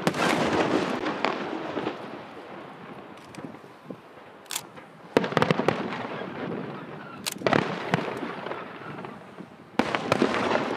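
Aerial fireworks shells bursting overhead: sharp bangs at the start, about five seconds in, about seven seconds in and near the end, each trailed by a couple of seconds of dense crackle.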